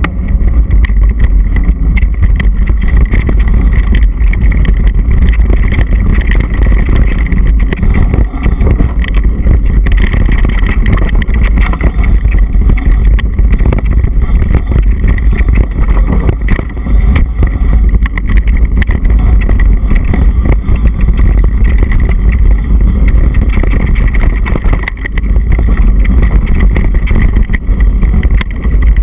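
Loud wind rush buffeting an action camera's microphone during a fast mountain-bike descent on a dirt singletrack, with constant small knocks and rattles from the bike jolting over rough ground.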